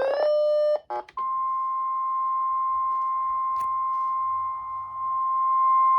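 NOAA Weather Radio 1050 Hz warning alarm tone: a single steady electronic tone that starts about a second in and holds, signalling that a warning, here a tornado warning, is about to be broadcast. Before it comes a brief chord of steady electronic tones that cuts off, then a short gap.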